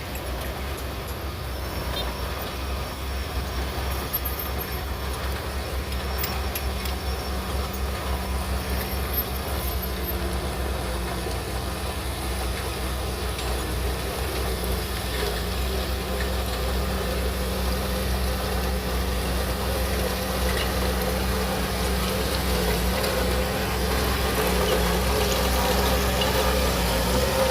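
Diesel engine of a Shantui DH17C3 bulldozer running steadily as the machine works, a low pulsing rumble that grows slightly louder toward the end.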